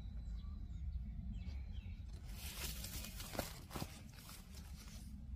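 Leaves of a nectarine tree rustling for a few seconds from about two seconds in, with a few crackles, over a low steady rumble.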